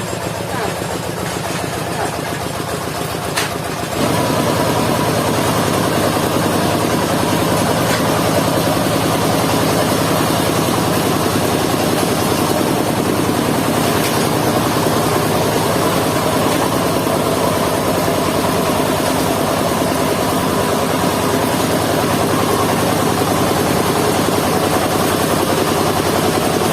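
Engine of a mobile circular sawmill running steadily, stepping up to a louder, harder run about four seconds in.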